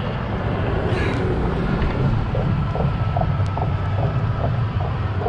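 Steady low rumble of wind buffeting the microphone, with a few faint short blips over it.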